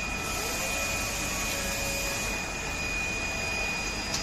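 Steady background hiss with a faint constant high-pitched whine, like a fan or running machinery.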